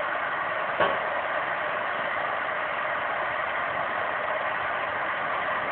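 Darjeeling Himalayan Railway steam locomotive standing with steam escaping in a steady hiss, and one short knock about a second in.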